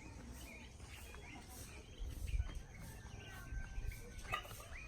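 Small birds chirping in the background: many short, quick calls throughout, with a low rumble now and then.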